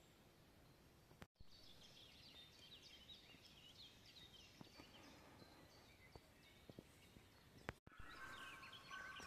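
Near silence with faint bird chirping: quick, repeated short high notes and a few soft clicks.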